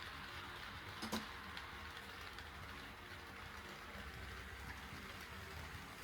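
HO-scale model train running along the track, a steady whirring rush of wheels and motor, with one sharp click about a second in.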